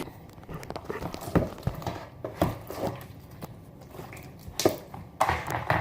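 A big lump of thick slime being worked out of its container by hand, making irregular sticky squelches and little clicks, with a few louder smacks near the end.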